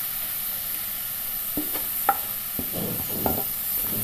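Sliced onions deep-frying in sunflower oil, a steady sizzle, now fried until well browned. From about one and a half seconds in, a few knocks and scrapes of a wooden spatula stirring against the nonstick pan.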